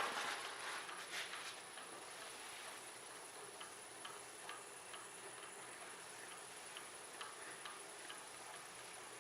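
Faint, regular ticking about two times a second over quiet room tone, with a faint steady high-pitched whine; a soft rustle fades out in the first second or so.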